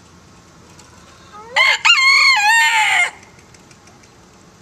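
A Golden Sebright bantam rooster crowing once, a single loud crow of under two seconds that starts about a second and a half in.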